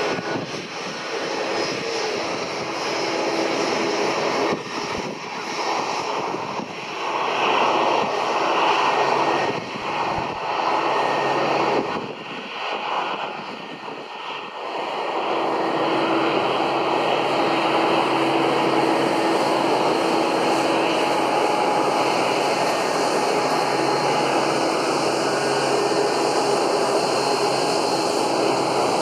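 Airliner engines at close range: the noise swells and wavers, dips briefly about 13 seconds in, then holds steady and loud with a low humming tone running through it.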